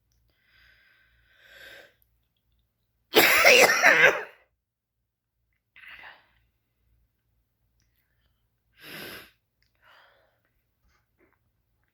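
A young woman coughing: one loud burst of coughs about three seconds in, lasting about a second, followed by a few short, quieter sounds a few seconds apart.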